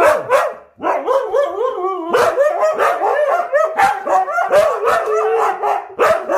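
Siberian huskies "talking": a continuous run of rising and falling woo-woo howls and yips, with two voices overlapping from about two seconds in.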